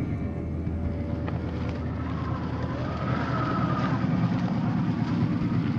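Traxxas TRX-4 RC crawler's electric motor and gear drivetrain whining as it crawls through snow. The whine rises and falls in pitch about halfway through.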